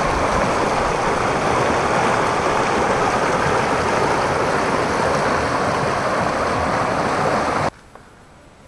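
Rushing river water cascading through channels between boulders and over rock ledges: a steady, full splashing rush. It cuts off suddenly near the end.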